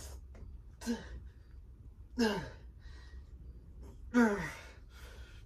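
A man groaning with effort three times, each groan falling in pitch, the last the loudest, with breathy exhales between: straining through the reps of a heavy set of dumbbell rows.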